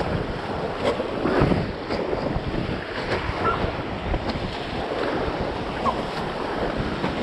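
River water rushing around a raft, with wind buffeting the microphone.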